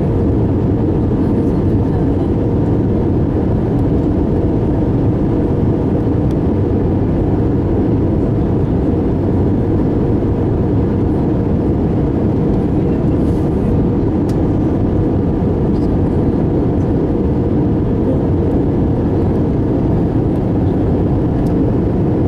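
Steady, even cabin noise of an Airbus A319 in flight, from its jet engine and the airflow past the fuselage, heard from a window seat beside the engine during the descent to land.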